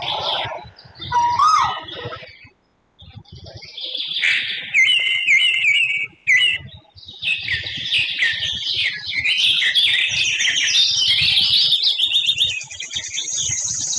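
Several birds chirping and trilling, with a brief pause a few seconds in, then thickening into a dense chorus from about halfway through.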